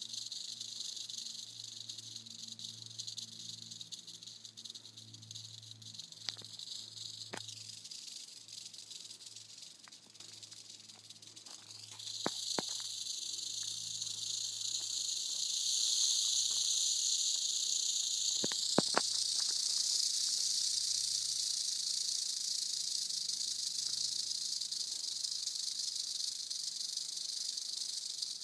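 Eastern diamondback rattlesnake rattling: a steady, high, hissing buzz that gets suddenly louder about twelve seconds in and again a few seconds later. A few faint clicks sound over it.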